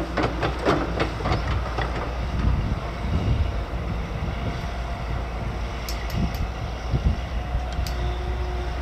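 Heavy diesel earthmoving machinery running with a steady low rumble, with a quick run of metallic clanks in the first second and a half and a few sharp clicks later on.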